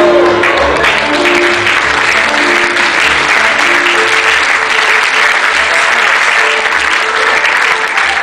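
Audience applauding, a dense steady clapping, over background music with short held melody notes and a regular bass beat.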